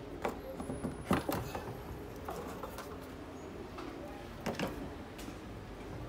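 Plastic washing-machine outer tub being handled and wiped with a rag: scattered knocks and rubbing, with the loudest knocks about a second in and again a little after four seconds.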